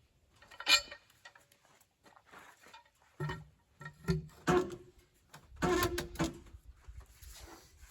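A series of irregular knocks and clanks, several of them followed by a short ringing tone.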